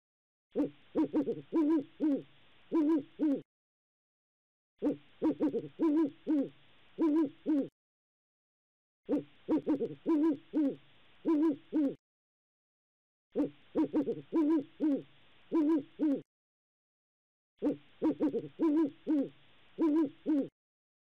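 Owl hooting: bursts of several short, quick hoots, each burst about three seconds long, with a second of silence between them. The same recording repeats as a loop about five times.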